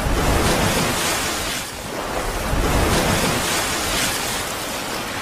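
Rushing-water sound effect for an animated logo intro: a loud noisy surge like surf that swells, eases about two seconds in, then swells again.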